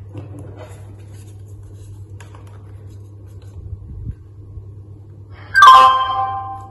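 A loud electronic chime about five and a half seconds in, several tones ringing together and fading over about a second. Before it, faint clicks from handling a plug and cable over a low steady hum.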